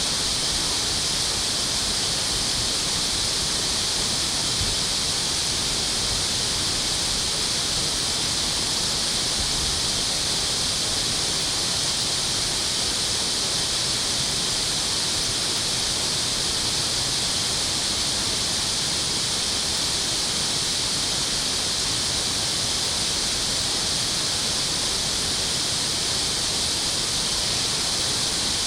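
Water rushing steadily, an even unbroken hiss through the dam outlet.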